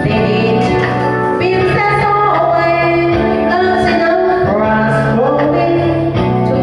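A woman singing into a handheld microphone over a karaoke backing track, her voice carrying the melody above steady bass and accompaniment.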